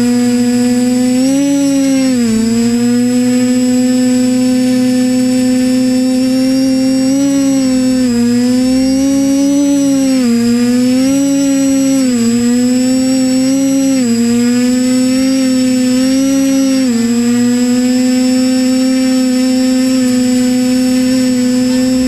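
TBS Discovery Pro quadcopter's brushless motors and propellers buzzing in a hover, heard through the camera mounted on its frame, with a thin high whine above the buzz. The pitch swells and dips about once a second, then holds steady for the last few seconds.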